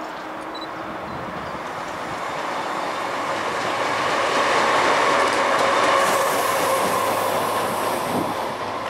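A lone diesel locomotive passing on the tracks, its engine and wheels on the rails swelling as it comes by and easing off as it moves away.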